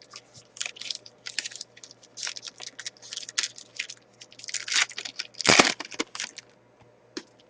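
Foil trading-card pack wrapper being torn open and handled: a run of quick crinkles and crackles, the loudest about five and a half seconds in.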